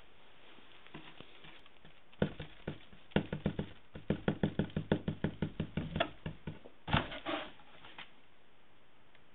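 Quick light taps and scratches on a cardboard box with paper inside, about four or five a second at their fastest, most likely the kitten moving and pawing inside the box.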